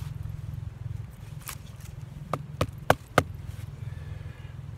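About five sharp wooden knocks in quick succession, around the middle, as green wooden sticks of a bushcraft saw frame knock together while being fitted, over a steady low rumble.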